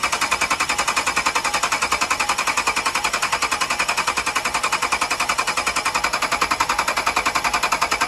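5.7-litre Hemi V8 cranking over on the starter with its valve cover off, a rapid, even chatter of about ten beats a second. It is being turned over so the valve springs can be watched for a worn cam lobe or seized lifter.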